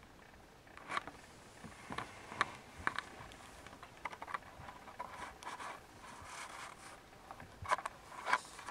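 Young kittens' claws scrabbling and scratching on a carpet-covered cat tree and carpeted floor as they play: irregular short scratches and ticks, with louder clusters about a second in, two to three seconds in, and near the end.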